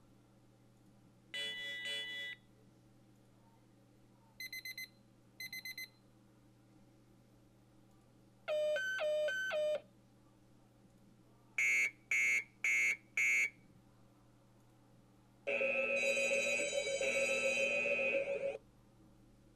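Zabbix's built-in trigger alert sounds played one after another, in order of rising severity from information to disaster: a short electronic chime, a double beep, a short run of alternating tones, four quick beeps, and a long warbling alarm tone of about three seconds.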